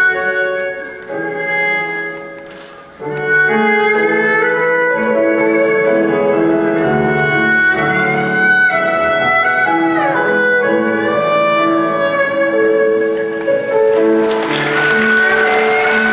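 Erhu, the Chinese two-string bowed fiddle, playing a slow melody of held notes with sliding pitch over accompaniment that carries lower notes. The music dips in loudness briefly about two seconds in. Near the end a hissing, cymbal-like swell joins in.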